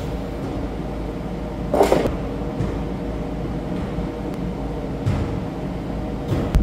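Steady hum of gym ventilation or air handling, with two short rushes of noise, about two seconds in and near the end, while a lifter holds a loaded barbell at his shoulders.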